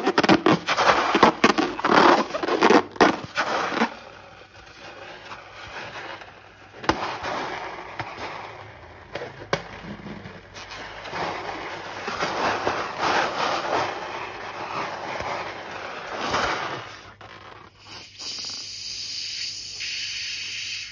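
Slime being squished and worked by hand, giving dense crackling and popping clicks. These are loudest in the first few seconds and softer through the middle. A steady hiss takes over near the end.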